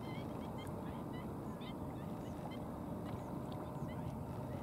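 Wild birds calling in short, high chirps, a few each second, over a steady low rumble.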